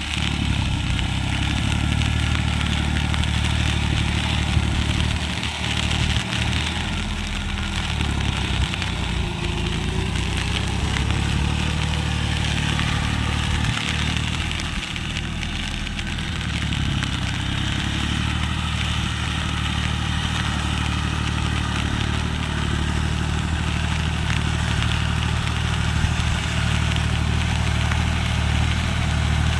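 John Deere tractor's diesel engine running steadily.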